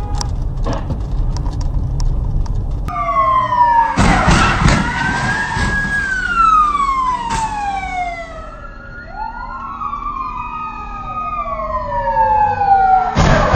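Low road rumble for about three seconds, then police sirens wailing, their pitch sliding slowly down and back up, with two sirens overlapping near the middle. A loud burst of noise comes about four seconds in and again near the end.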